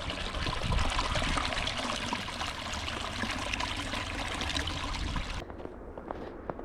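A steady rushing, trickling noise that cuts off sharply about five and a half seconds in, leaving a quieter low rumble.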